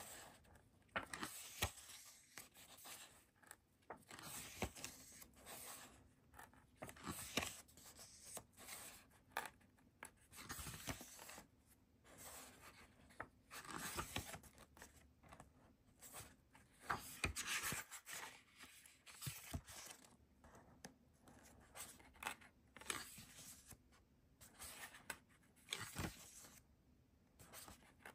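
A K-pop album's packaging and paper contents being handled: faint, irregular rustles, scrapes and light taps of paper and card.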